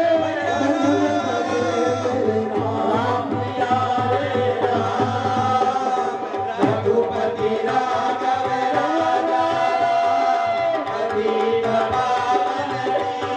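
A sung lament with tabla accompaniment, the melody wavering over a steady drone.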